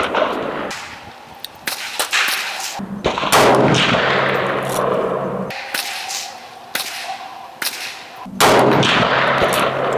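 Two shots from a 7.62x39 AK-47 rifle, about five seconds apart, each followed by a long echo, with a few smaller sharp clicks between them.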